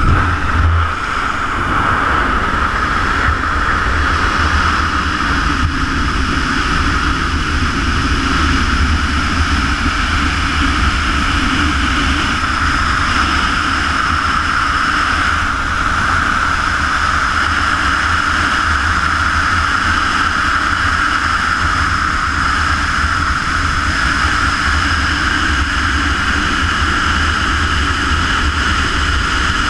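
Steady loud rush of wind on a GoPro's microphone during wingsuit freefall, with a constant whistling hiss over a low rumble.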